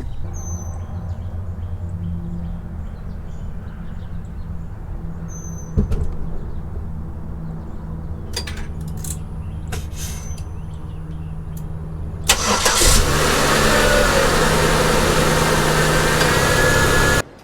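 Car engine running with a low steady hum and a few clicks and knocks. About twelve seconds in, a much louder engine sound with a rising whine sets in, then cuts off abruptly near the end.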